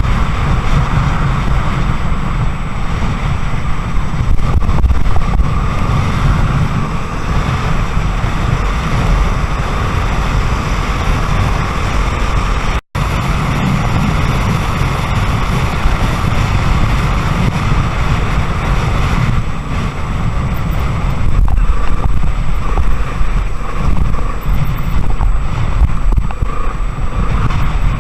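Wind buffeting the microphone on a moving Honda XR250 Tornado dirt bike, with the bike running underneath. The sound cuts out for an instant about 13 seconds in.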